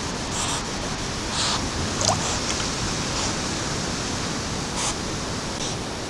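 North American river otter swimming and surfacing in still swamp water: a few short splashes over a steady hiss from the trail camera's microphone.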